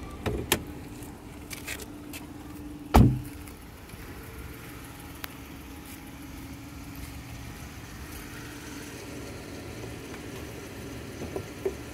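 Chrysler 300's 3.6-litre V6 idling steadily, with a few light clicks near the start and one heavy thump about three seconds in, a car door shutting.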